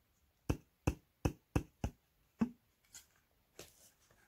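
Sharp taps and knocks from a woofer being handled, as its cone is pushed and a screwdriver resting on the dust cap knocks against it. There are about six quick knocks in the first two and a half seconds, then a couple of faint clicks.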